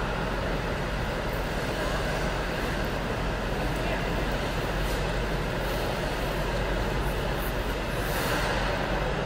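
Steady hum and hiss of an indoor ice arena's machinery, even throughout, with faint scrapes of skate blades on the ice.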